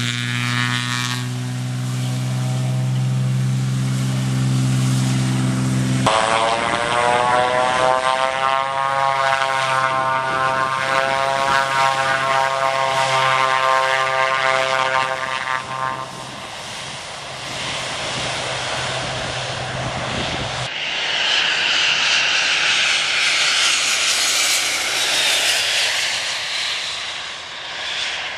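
Aircraft engines on takeoff in three abrupt takes: a Cessna single-engine piston propeller plane at full power with a steady droning hum, then a twin-engine plane's whine rising slightly in pitch over a low hum, then, about 21 s in, a twin-engine business jet's rushing engine noise swelling as it lifts off.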